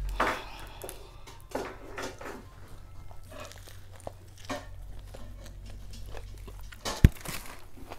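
Close-miked eating sounds: a bite into a toasted sub sandwich and chewing, with scattered crackles, and one sharp knock about seven seconds in.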